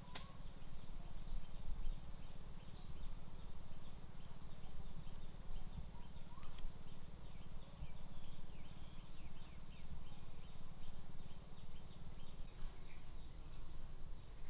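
Forest ambience: a steady low rumble under many quick bird chirps, with a high, steady insect drone coming in about two seconds before the end.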